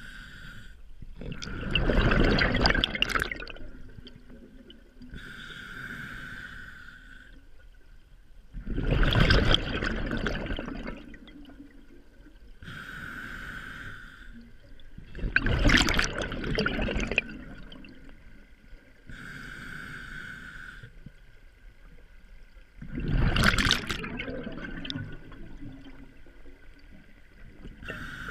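Scuba diver breathing on a regulator underwater: a steady hiss of each inhale through the demand valve, then a loud rush of exhaust bubbles, four breaths about seven seconds apart.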